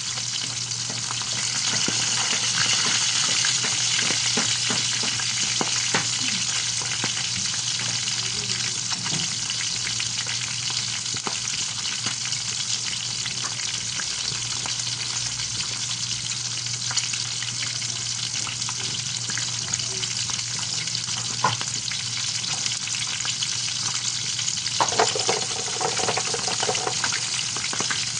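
Bangus (milkfish) frying in hot oil: a steady sizzle full of fine crackles and spatters, with a few sharper knocks, the loudest near the end.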